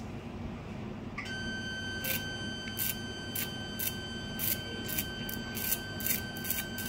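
An electrosurgical cautery unit's steady activation beep starts about a second in and holds, while irregular short crackles sound as the needle tip burns a lip granuloma.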